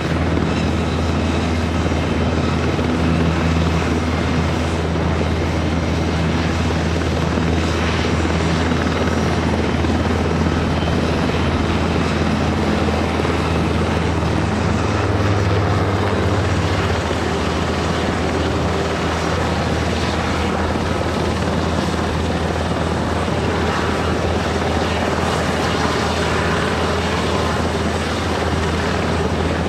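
French Navy Aérospatiale Alouette III helicopter in flight: its Turbomeca Artouste turboshaft and rotor run steadily and loudly, with a strong low hum.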